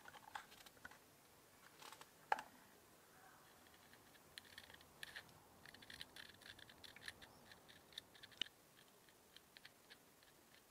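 Faint clicks, crackles and scratches of hands handling broken pieces of a cordless angle grinder's cracked plastic shell. There is one sharper click about two seconds in, and a run of quick light ticks through the middle.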